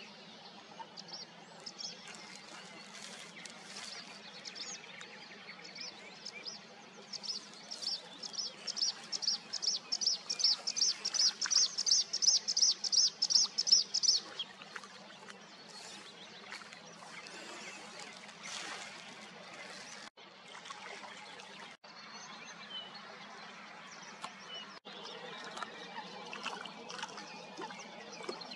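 A bluethroat singing: varied high phrases, then a long run of one sharp note repeated about four times a second for several seconds, the loudest part, which stops abruptly about halfway through.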